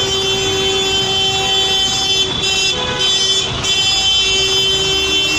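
A vehicle horn held in long, steady blasts at one fixed pitch, broken briefly about two and a half seconds in and again near three and a half seconds, over street traffic noise.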